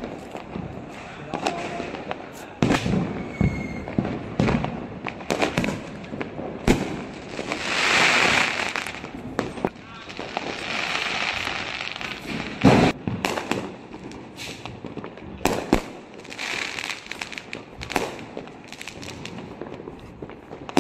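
Fireworks and firecrackers going off on all sides: many sharp bangs at irregular intervals, the loudest about 13 seconds in. There are spells of hissing crackle around 8, 11 and 17 seconds as aerial shells burst into sparks.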